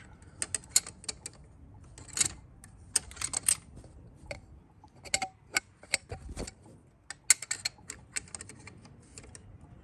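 Water-pump pliers clicking and clacking against a pump-nozzle unit injector as it is gripped, twisted and wiggled in a VW 1.9 TDI cylinder head to free it from its bore. The sound is a run of sharp, irregular metallic clicks in small clusters.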